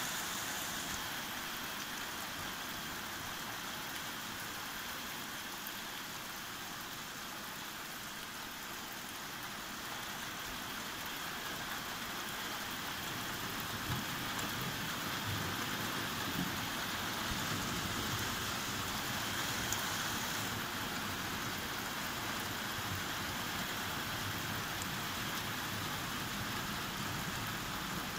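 Thunderstorm rain falling steadily, with a low rumble building about a third of the way in and carrying on.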